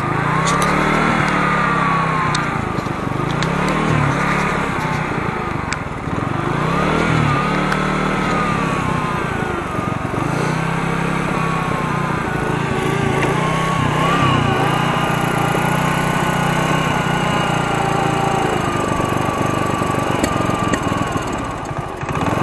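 Alpha moped's single-cylinder engine warming up from cold on the choke, its revs swelling and sagging every couple of seconds and running steadier for a while past the middle.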